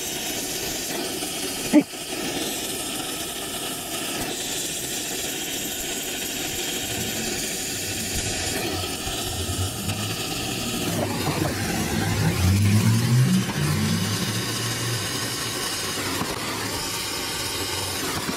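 Oxy-acetylene torch flame hissing steadily while it heats the brazed copper joints of a heat pump's reversing valve to unsweat them. A single sharp click comes about two seconds in, and a low rumble swells partway through.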